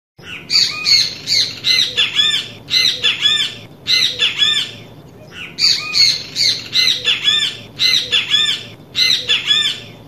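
Great kiskadee (bem-te-vi) calling: loud, harsh, arching notes repeated in quick groups, with a short pause about five seconds in.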